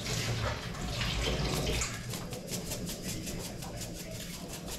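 A steady rushing noise for about the first two seconds, then a plastic spice shaker shaken over chicken wings, its granules rattling in quick, even strokes several times a second.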